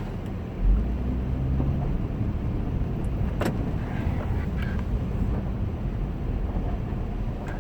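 A 2010 Acura MDX driving on snow-covered roads, heard as a steady low rumble of engine and tyres that grows louder about a second in. A single sharp click sounds about three and a half seconds in.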